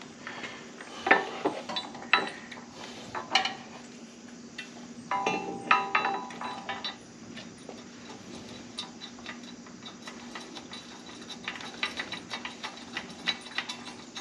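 Metal parts knocking and clinking as an engine-guard bolt is fitted, with a louder clatter about halfway through. Then a hand ratchet clicks in quick light strokes as the bolt is turned in.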